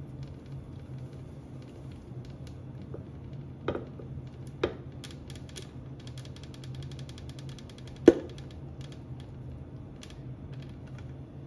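Frozen slush being poured from two blender jars into a glass goblet: faint clicks and three sharp knocks of the jars against the glass, the loudest about eight seconds in, over a steady low hum.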